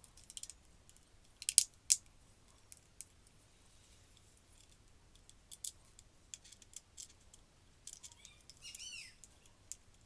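Scattered sharp clicks and taps of small plastic parts being handled and snapped together, likely the casing of a mini handheld bag sealer being reassembled; the loudest clicks come about one and a half to two seconds in. Near the end there is a brief squeaky chirp that bends up and down in pitch.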